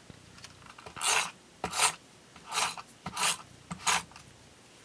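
Five short rasping rubs on paper as a piece of a scrapbook layout is pressed down onto the page.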